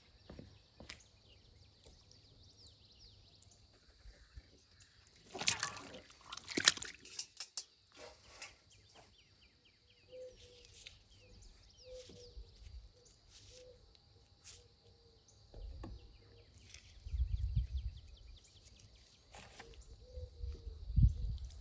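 Outdoor ambience with birds calling, a few sharp knocks and small clicks from food being handled and peeled, and low rumbling near the end.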